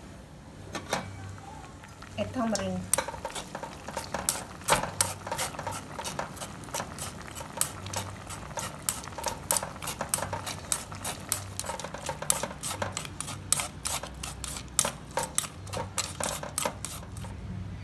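A metal spoon stirring and pressing pulp in a wire-mesh strainer set in a stainless steel pot of broth. It gives a quick, irregular run of clicks and scrapes, several a second, as the spoon knocks the strainer's mesh and rim.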